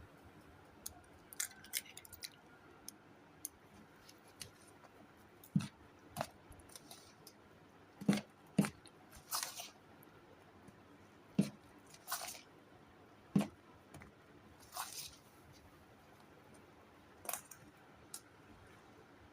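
Kitchen handling sounds: irregular clicks and light knocks every second or two, some followed by short rustling or scraping, as utensils and ingredients are worked.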